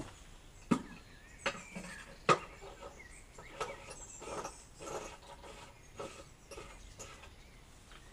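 Irregular knocks and clatter of buckets and a garden pressure sprayer being handled, with three sharp knocks in the first two and a half seconds and lighter clicks after.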